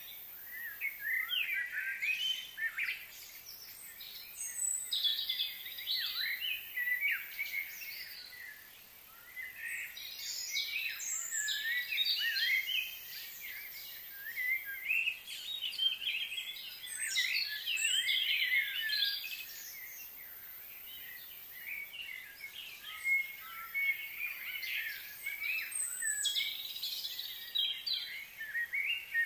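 Small birds chirping and singing, several voices overlapping in bouts of a few seconds, with quieter stretches between bouts.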